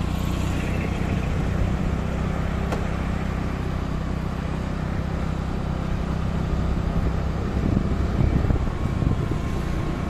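A vehicle's engine running steadily with road noise while driving, a low hum that gets louder and rougher for a moment about eight seconds in.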